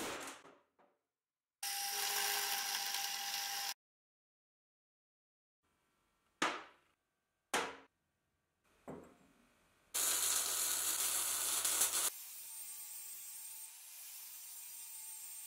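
Cut-together workshop sounds. A metal clink at the start is followed by about two seconds of a power tool running. Two sharp clinks of steel parts on a steel bench come about a second apart, then a loud two-second grinding burst, and an angle grinder cutting a steel bar held in a vise, a steady grind, through the last few seconds.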